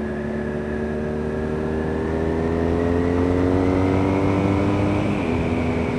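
BMW R nineT Scrambler's 1170 cc boxer twin accelerating, its note rising steadily for about five seconds, then dropping in pitch as the bike shifts up a gear.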